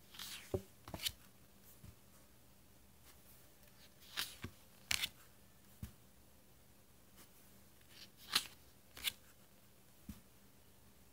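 Tarot cards being slid off a deck and laid onto a pile, three times about four seconds apart: each a brief papery swish of card over card followed by a light tap as it lands.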